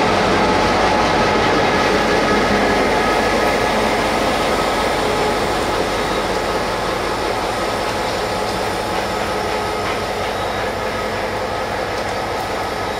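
Local train hauled by a GT22 diesel locomotive, its engine and running gear sounding steadily, gradually fading over the second half.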